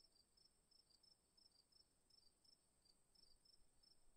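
Near silence, with a faint steady high-pitched tone and faint high chirps repeating several times a second.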